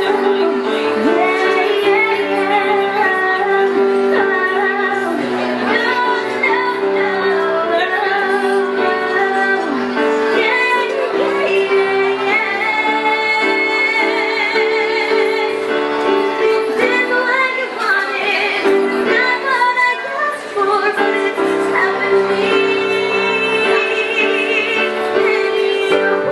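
A woman singing a song into a microphone, holding some notes with vibrato, accompanied by chords on a Casio Privia digital piano.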